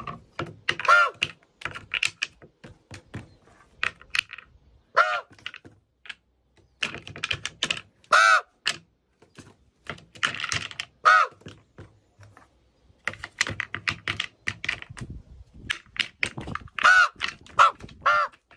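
A bird giving short calls about six times, each arching down in pitch, among many irregular clicks and taps.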